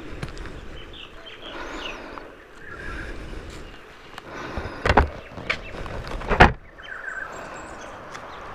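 Clattering, knocking handling noises, with two loud knocks about five and six and a half seconds in, over faint bird chirps.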